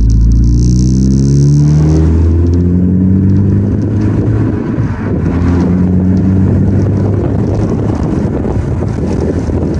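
Ford Focus ST's turbocharged four-cylinder engine heard through a custom MagnaFlow exhaust (resonator and stock muffler deleted, one 5-inch round MagnaFlow muffler) while driving: the pitch rises under acceleration, drops at a gear change about two seconds in, climbs again, and after another shift near the five-second mark settles into a steady cruising rumble.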